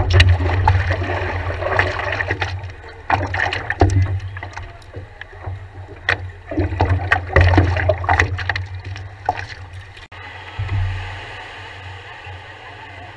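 Water splashing and sloshing around a stand-up paddleboard as it is paddled, picked up by a camera on the board, over a steady low rumble. The splashes come in bunches every second or two, then give way to calmer lapping for the last few seconds.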